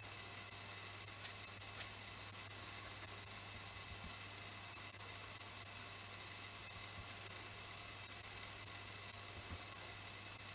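Steady high-pitched hiss with a low, even hum underneath, unchanging and with no distinct events: a constant background noise floor.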